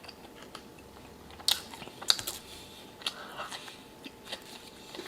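Close-miked chewing of a mouthful of chicken sandwich, with moist mouth clicks and smacks at irregular intervals, the loudest about a second and a half in and just after two seconds.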